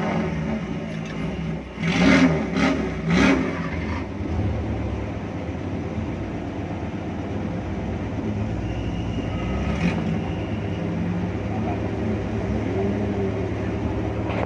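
Off-road 4x4 engines running with a steady low drone, and a few small rises in engine speed as the 4x4 ahead is driven slowly up a muddy, rutted track.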